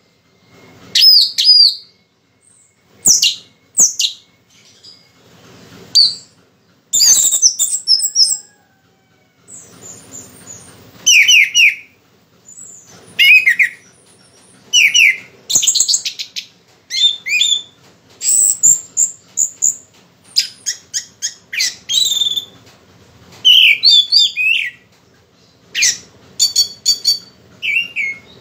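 Orange-headed thrush singing in its cage: short, varied phrases of whistled and rapid repeated notes with brief pauses between them. The bird is singing strongly while still in moult.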